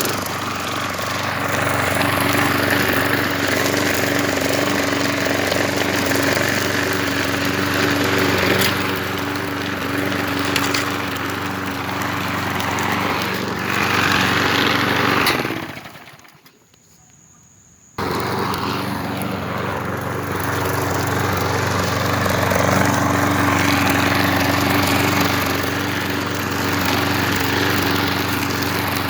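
Craftsman lawn mower engine running steadily under mowing, with a freshly fitted replacement engine. About halfway through the sound fades away for a couple of seconds, then comes back suddenly at full level.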